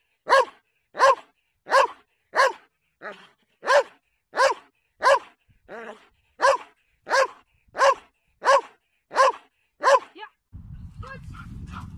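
Malinois-type dog giving about fifteen sharp demand barks in an even rhythm, roughly one and a half a second, at a bite pillow held in front of it, as in protection-sport foundation bark training. The barks stop about ten seconds in, and a low wind rumble on the microphone follows.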